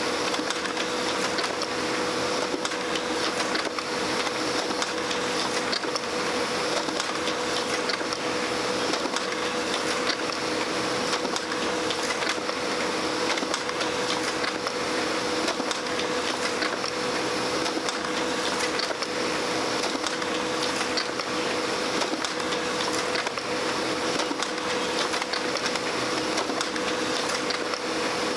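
Brother laser printer running continuously, feeding and printing sheet after sheet: a steady mechanical whir with a constant hum running through it.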